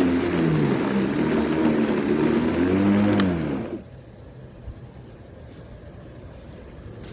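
Battery-powered brushless lawn mower running, its motor pitch rising and falling, then cutting off suddenly about three and a half seconds in.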